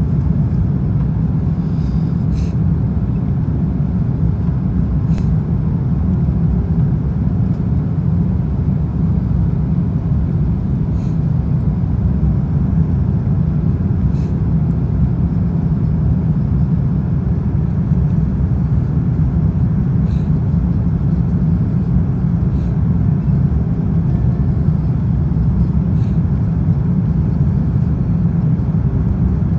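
Steady low rumble of engine and airflow noise heard inside the cabin of an Airbus A330 on approach to landing, flaps extended. A few faint clicks come through now and then.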